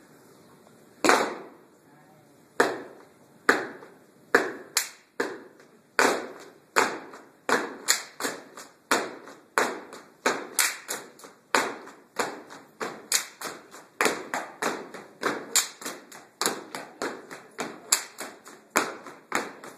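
Body percussion of a step routine: sharp hand claps and stomps on a hard floor. The hits are sparse at first, a second or so apart, then settle into a quicker steady rhythm of about two to three a second.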